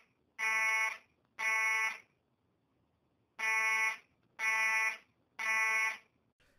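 Fire alarm sound effect sounding the three-beep evacuation pattern: buzzy beeps about half a second long, two of them, a pause of about a second and a half, then three more.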